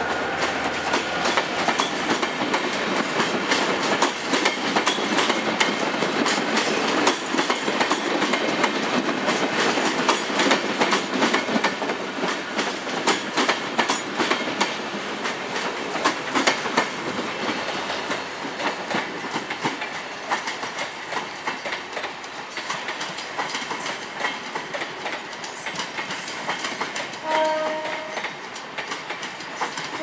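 Passenger coaches rolling past at close range, their wheels clicking over the rail joints in a rapid clickety-clack that slowly fades as the train pulls away. A short horn note sounds near the end.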